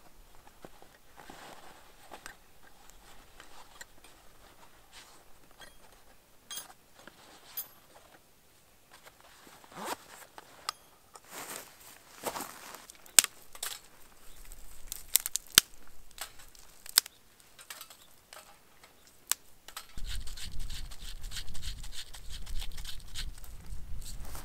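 A jacket being handled: rustling fabric and a zip at the pocket, with a few sharp clicks. Near the end a steady rushing noise comes in and stays.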